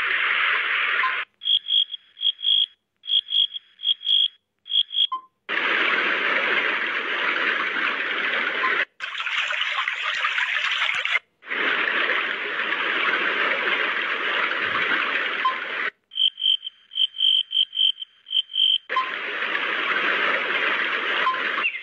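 A nature-sound soundtrack: long stretches of steady rushing noise like running water, twice giving way to runs of short, high chirping calls at about four a second.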